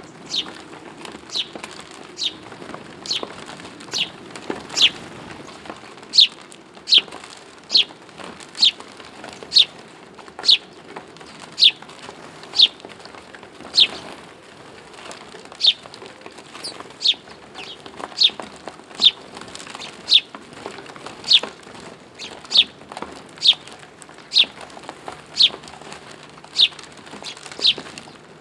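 A bird chirping over and over: one short, high, falling note a little more than once a second, very regular throughout.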